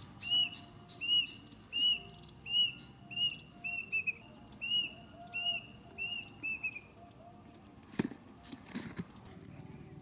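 A bird calling with a repeated short whistled note, about one every 0.7 s, some notes doubled, stopping about 7 seconds in. Two sharp clicks follow near the end.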